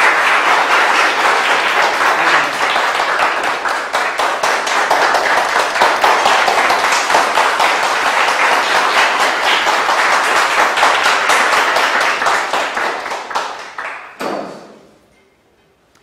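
Audience applauding, a steady patter of many hands clapping that dies away about fourteen seconds in.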